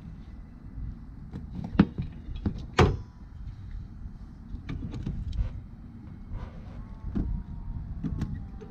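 Windshield wiper arms being lifted and handled on a car, giving a few sharp metallic clicks, the two loudest about two and three seconds in, over a steady low rumble.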